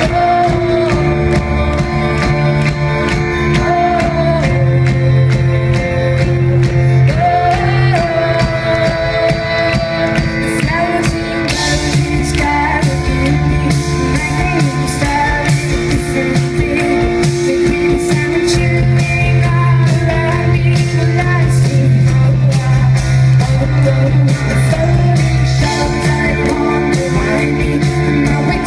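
Live pop band playing, with a sung lead voice over sustained electric keyboard chords, a steady deep bass and a drum kit with cymbals.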